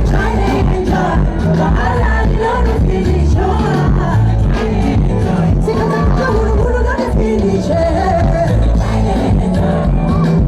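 Live Afrobeats concert music: a singer over a heavy, steady bass beat, with the crowd faintly audible.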